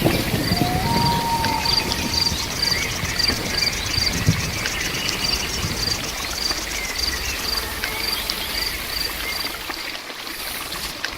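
Insects chirping in a steady rhythm, about three high chirps a second with a fast buzzing trill behind them, over a steady hiss of rain. A short whistled note sounds about a second in.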